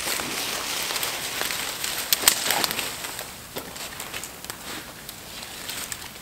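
Armful of dry branches and twigs rustling, cracking and clattering as they are carried and laid against a door, with footsteps in dry leaf litter. Densest in the first few seconds, then thinning to scattered snaps and knocks.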